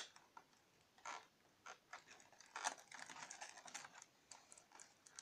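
Fingers picking and tearing at a cardboard advent calendar door: a sharp tap at the start, then scattered scratches and crinkles of the cardboard, busier in the second half. The door is not perforated along its bottom edge and has to be torn open.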